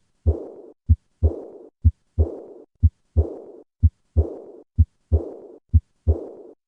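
Heartbeat through a stethoscope with the early diastolic decrescendo murmur of aortic regurgitation: each beat, about one a second, is a short thud, then a second thud trailed by a soft blowing noise that fades away over about half a second.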